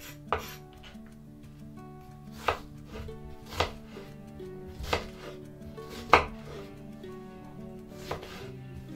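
Chef's knife chopping an onion on a wooden cutting board: about six sharp chops one to two seconds apart, the loudest about six seconds in, over soft background music.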